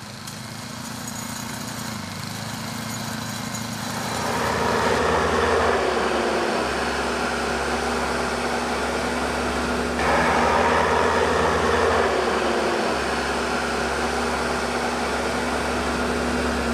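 Engine of a snow-clearing machine running steadily and growing louder, its pitch stepping up and down, with a loud noisy rush joining about four seconds in and swelling again about ten seconds in.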